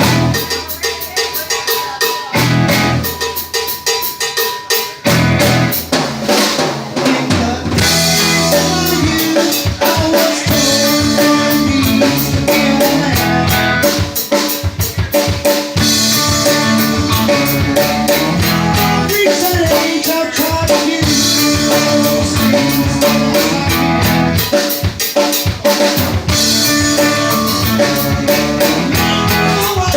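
A live band playing an instrumental passage with no vocals, the drum kit's snare, rimshots and bass drum to the fore. It starts sparse and the full band comes in about five seconds in, building fuller around eight seconds.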